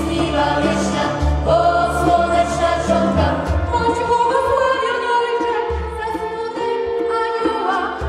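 Mixed choir singing with violin, keyboard and a hand drum (djembe) accompanying: held sung lines over sustained low bass notes and light drum strokes.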